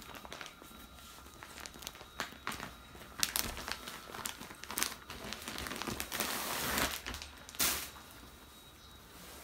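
Clear plastic wrapping of a bedspread set crinkling and rustling in irregular handfuls as it is opened and the folded cloth is pulled out, with a longer rustle about six seconds in.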